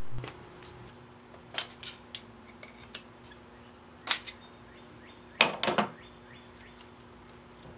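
Scattered metal clicks and clinks from a bicycle rear rack being handled and taken apart, its hinge section and coil spring being worked off. The loudest is a quick cluster of three clanks about five and a half seconds in, over a faint steady hum.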